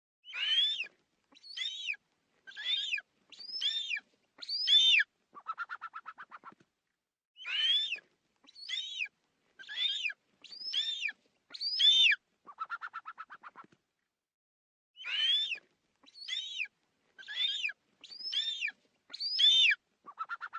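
Eagle calling: a run of five shrill, downward-sliding screeches followed by a fast stuttering chatter that slows and fades. The same sequence repeats about every seven and a half seconds, two full times and a third starting near the end.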